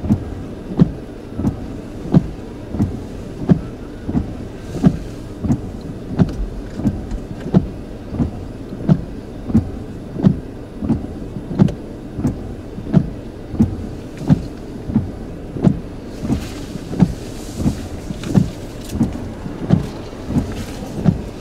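Windshield wipers sweeping across a rain-wet windshield, heard inside the car's cabin: a regular low thump about one and a half times a second, over the car's steady low hum and rain hiss.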